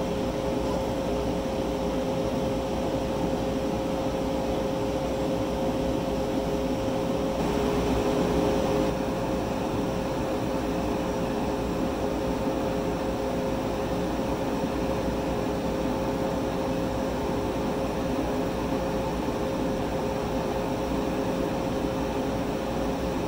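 Universal VLS 3.60 laser cutter running a job on quarter-inch olive wood: a steady machine hum with two steady tones and a hiss. The hiss grows slightly louder and brighter for a second or two about 7 to 9 seconds in.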